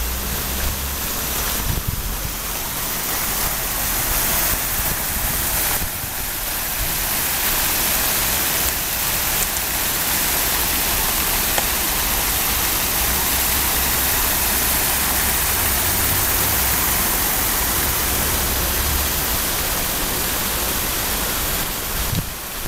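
Steady rushing and splashing of fountain jets spraying into a canal, with a low hum underneath.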